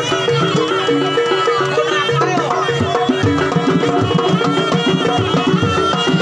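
Live jaranan gamelan music: kendang hand drums beat under a repeating pattern of gong-chime notes, with a high, wavering melody line above. The drumming gets busier about three seconds in.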